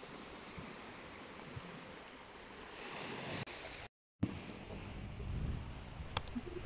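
Small sea waves washing on a pebble shore, with wind buffeting the microphone. The sound drops out for a moment about four seconds in, comes back with more low wind rumble, and a sharp click sounds near the end.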